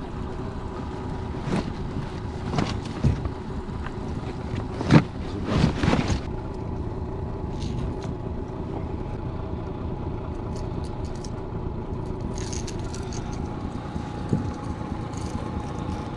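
Honda 30 hp four-stroke outboard running steadily at trolling speed, a continuous hum. Over it come several knocks and clicks in the first six seconds, with a few light clicks later, as a lure is worked free of a rubber-mesh landing net.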